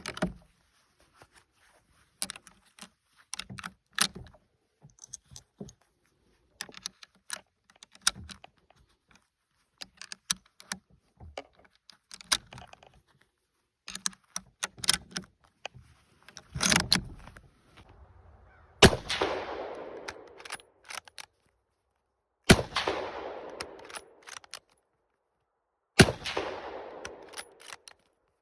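Mosin–Nagant 91/30 bolt-action rifle in 7.62×54mmR: a long run of sharp metallic clicks and clacks from handling the action, then a loud knock. Three rifle shots follow, about three and a half seconds apart, each trailing off in a long echo.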